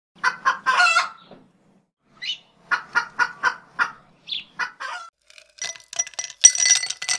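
Short clucking calls in quick bursts, about four a second in places. About five and a half seconds in they give way to ice cubes dropping into an empty drinking glass: several sharp clinks, each leaving a high ringing tone, the loudest sounds here.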